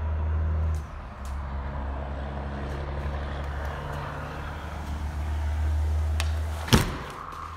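Steady low rumble, then one sharp thud near the end as the sliding patio door is pushed shut.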